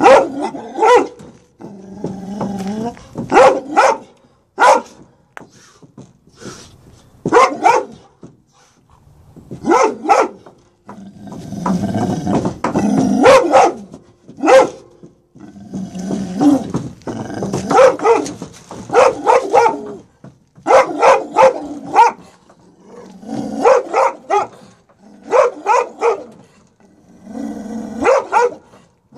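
Perro de Presa Canario barking and growling from inside a plastic travel crate, with deep barks in quick runs of two to four and low growling in between. It is defensive, territorial aggression: the dog is guarding the truck bed where its crate sits.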